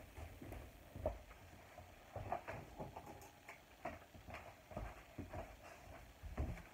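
Faint, irregular footsteps and small knocks of a person moving about a room, with a quiet room background between them.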